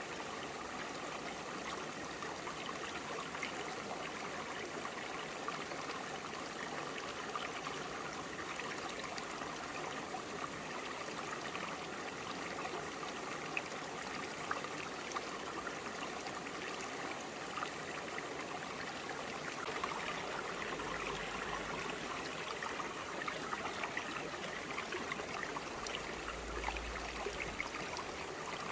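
Clear forest stream flowing over broad, flat rocks: a steady babble of running water, flecked with small trickles and splashes.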